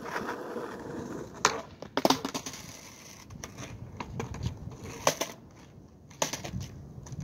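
Skateboard on asphalt during a backside heelflip attempt: a sharp pop of the tail about a second and a half in, then the board clattering down on the pavement half a second later. Wheels roll between the clacks, with two more sharp clacks of the board near five and six seconds.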